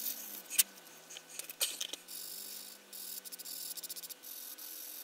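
Sanding stick rubbing against the plastic fuselage of a 1:72 model aircraft kit: light, high scraping strokes in short runs, quickening to a fast run of strokes in the middle, with a few sharp light clicks as the parts are handled.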